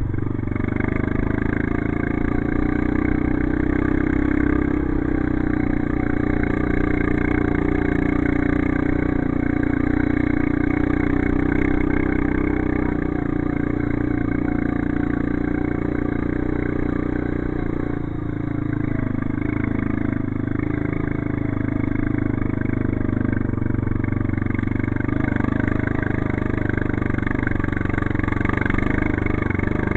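ATV engine running steadily under way, its pitch drifting up and down with the throttle and dipping briefly about two-thirds of the way through.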